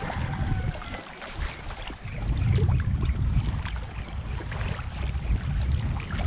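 Wind buffeting the microphone in uneven gusts, over a water-and-outdoor background with many small scattered clicks and ticks.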